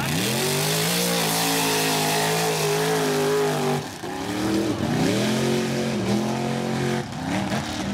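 Mud-racing buggy's engine at full throttle, a high, steady revving note with a hiss over it. It drops briefly about four seconds in, climbs again, and falls off near the end.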